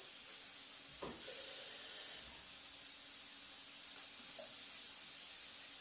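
Steady sizzling hiss from a hot grill pan with grilled chicken on it, with a single soft knock about a second in.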